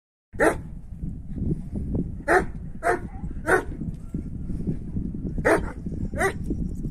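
Kangal shepherd dog barking, six short sharp barks at uneven intervals, over a steady low rumble.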